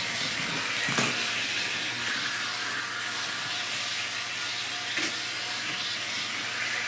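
Model train locomotive running on Bachmann E-Z Track: a steady whirring hiss of its small electric motor and wheels on the rails, with two short clicks, about a second in and about five seconds in.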